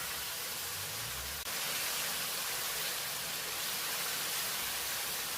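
Chicken curry sizzling in hot oil on high heat: a steady hiss, stepping up slightly about a second and a half in.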